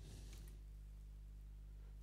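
Near silence over a steady low hum, with one faint computer key click about half a second in as a selected block of text is deleted.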